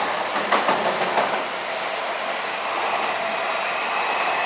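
Seibu 001 Series Laview limited express crossing a steel girder bridge: a steady rumble, with a quick run of wheel clacks over rail joints in the first second or so.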